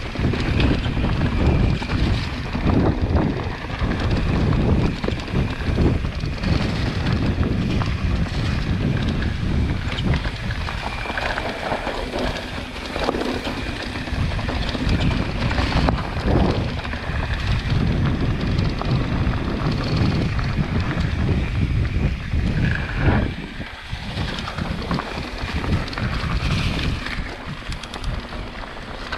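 Wind buffeting the microphone while a full-suspension mountain bike descends a dirt trail covered in dry leaves. The tyres roll and crunch over dirt and leaves, and the bike rattles with frequent short knocks over roots and bumps.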